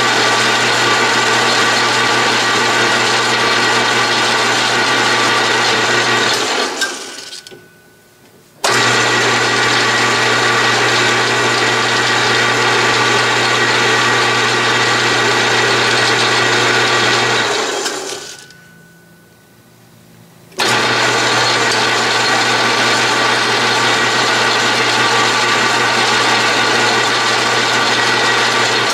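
Atlas/Craftsman 12-inch metal lathe running loud and steady while single-point cutting a thread. Twice it winds down to a stop and starts up again abruptly about two seconds later, and it winds down again at the end. Each stop is the motor being switched off and reversed between threading passes, with the half nut left engaged.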